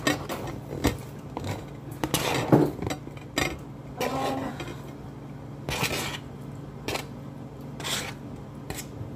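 Kitchenware being handled: a string of knocks and clinks of dishes and utensils, the loudest about two and a half seconds in, over a steady low hum.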